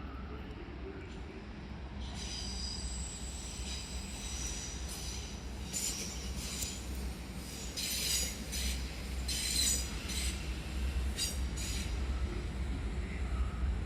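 DB class 425 electric multiple unit pulling out, its wheels squealing in high-pitched, on-and-off squeals of several tones for much of the time, over a low steady rumble. This squeal is what gives the class its nickname 'Quietschie' (squeaky).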